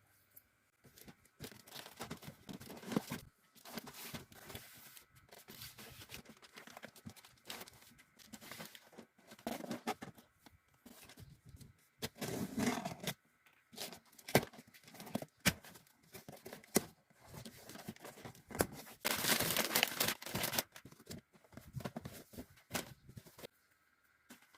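Packaging being handled by hand: irregular rustling and crinkling of wrapping, with tearing sounds, the longest and loudest lasting a second or so near 19 seconds in.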